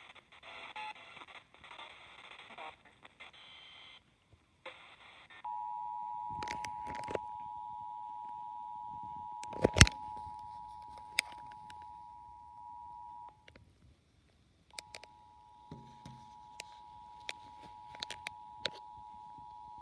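Emergency Alert System two-tone attention signal from an FM radio: two steady tones sounding together just under 1 kHz, starting about five seconds in after some muffled radio audio, breaking off for about a second and a half near the thirteen-second mark, then starting again. Sharp clicks sound over it, the loudest one about ten seconds in.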